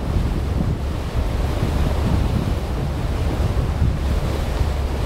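Wind buffeting the microphone as a steady low rumble over a rushing wash of wind and water.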